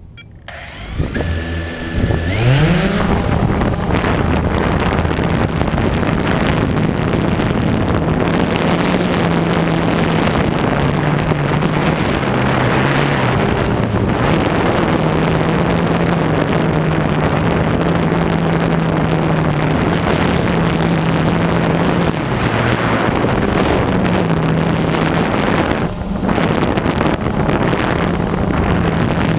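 Blade 350QX quadcopter's four brushless motors spinning up, their pitch rising about two seconds in, then a steady propeller hum with rushing air as it flies, shifting slightly in pitch now and then. Heard up close from on board the drone.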